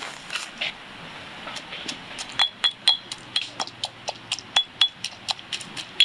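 Pestle pounding chopped herbs in a stone mortar: a few soft knocks at first, then from about two seconds in a quick run of sharp, ringing clinks, about four a second.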